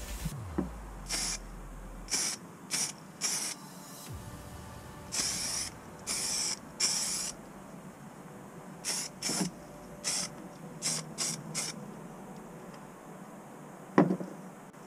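Aerosol can of spray primer hissing in about a dozen short bursts, the longest around half a second, as small parts are coated. A single sharp knock near the end is the loudest sound.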